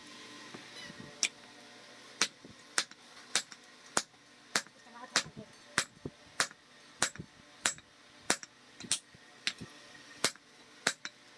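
Hammer blows on red-hot iron on an anvil as a meat cleaver blade is hot-forged: sharp metallic strikes in a steady rhythm, about one every 0.6 seconds, starting about a second in.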